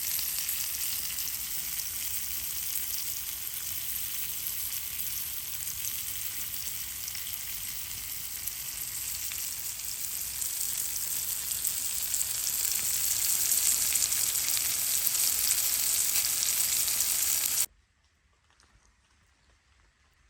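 Food frying in an oiled titanium pan: a steady, dense sizzle that grows louder for a few seconds and then cuts off abruptly near the end, leaving only faint quiet.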